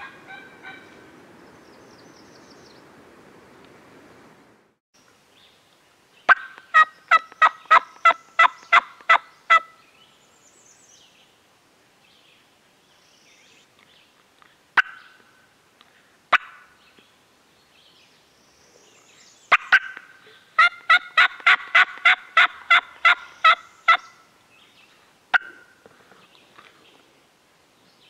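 Wild turkey yelping: two long runs of loud, evenly spaced yelps at about three a second, with a few single sharp notes between them. Soft rustling of footsteps through leaf litter stops about four seconds in.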